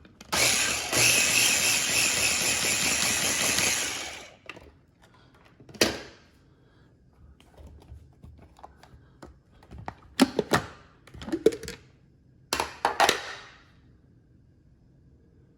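Blender motor running for about four seconds as it purees the charred tomatoes, serranos and salt into salsa, then winding down. Several sharp knocks and clatters follow.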